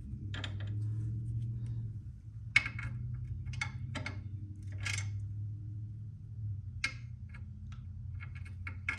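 Scattered metal clicks and taps as the new ball joint's bolt and hardware are handled and fitted by hand, the sharpest about two and a half seconds in, over a steady low hum.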